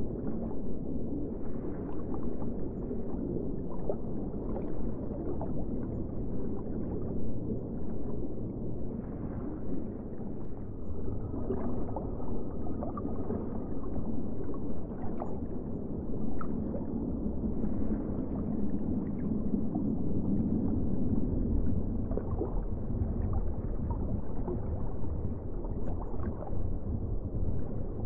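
Underwater ambience: a steady, muffled low rumble of water with scattered faint clicks, and a thin faint tone for a couple of seconds near the middle.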